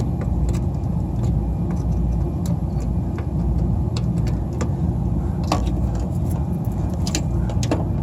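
Steady low rumble, with scattered light clicks of a screwdriver tightening the low-voltage terminal screws on an HVAC unit's contactor.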